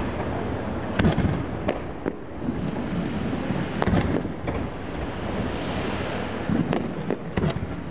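Fireworks display: a series of sharp bangs from bursting aerial shells, several in quick pairs, over a steady rushing background noise.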